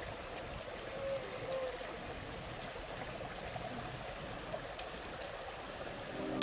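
Running water from a stream, a steady, even rush.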